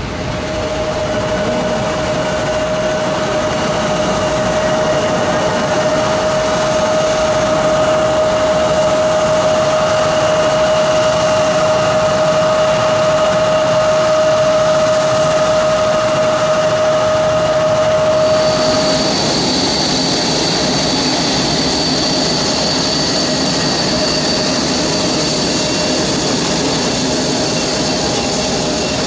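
Jet airliner engines running loud and steady: a broad rush with a fixed whine. About two-thirds of the way through the whine cuts out and a higher-pitched whine takes over.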